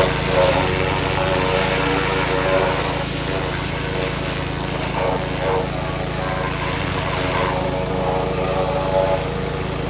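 Pressure washer running steadily, its spray hissing as it blasts oven-cleaner degreaser off a bare Ford 302 V8 engine block; the hiss of the spray rises and falls as the jet moves.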